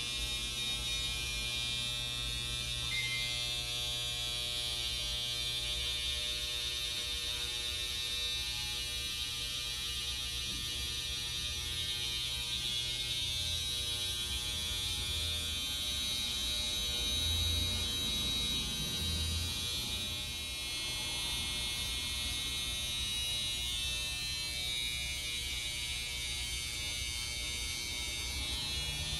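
Electric hair clippers running with a steady hum, cutting beard hair over a comb along the cheek and sideburn.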